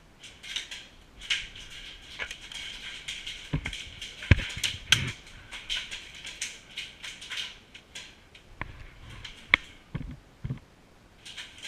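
Irregular rustling and crunching, as of a person moving through brush or dry leaves, scattered with sharp clicks. A few heavier thumps come around the middle and again near the end.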